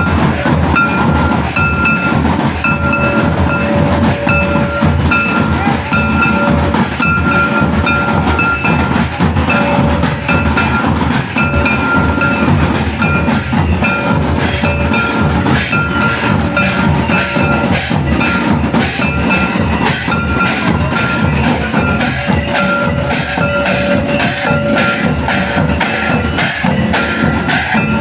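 Santali dance music: drums beating a steady, even rhythm of about two to three strokes a second, with a short high ringing note repeating over the beat.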